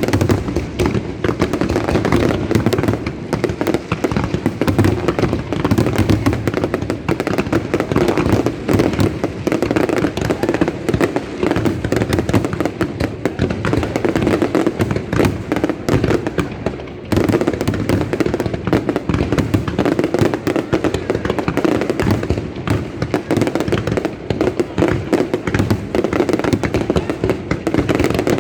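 Fireworks display: a dense, continuous barrage of bangs and crackling, with a brief lull about 17 seconds in.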